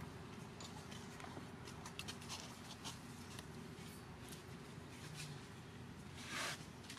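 Quiet outdoor background with scattered soft clicks and ticks, and one brief scuffing rustle about six seconds in, as the macaques shift and a baby moves about on sandy ground.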